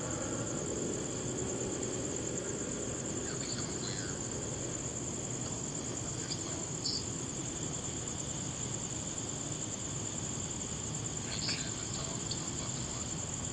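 Crickets chirping in a steady, high-pitched night chorus, with a few brief, lower chirps standing out now and then.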